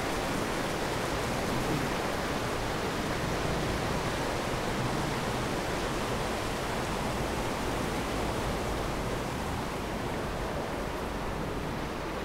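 Steady rush of a shallow creek running over rocks and riffles, heard under a concrete bridge underpass; it eases slightly near the end.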